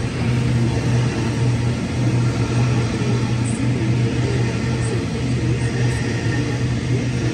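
Double-deck electric suburban train running past close by along the platform: a steady low hum with the rumble and rush of wheels on the track.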